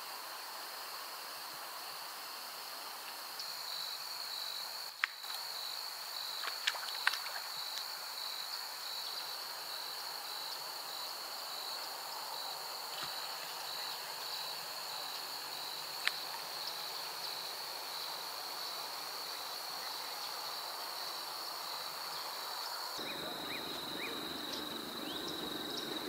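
Insects trilling: a continuous high-pitched chirring chorus, with a few sharp clicks over it. Near the end the trill shifts slightly lower and a duller rustling noise joins in.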